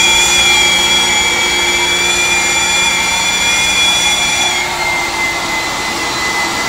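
Kent hot water carpet extractor's vacuum motor running with a steady high whine as the machine scrubs and sucks water up from a wet carpet. About four and a half seconds in, the whine drops slightly in pitch and thins out.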